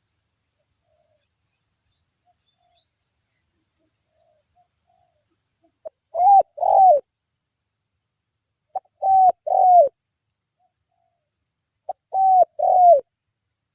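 Spotted dove (tekukur) cooing: three calls about three seconds apart, each a short note followed by two longer, arched coos, starting about six seconds in.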